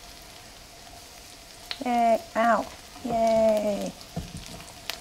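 Corn fritters frying in oil in a skillet, a steady sizzle throughout. Partway through, a person's wordless sing-song vocalizing is heard twice briefly and then once for about a second.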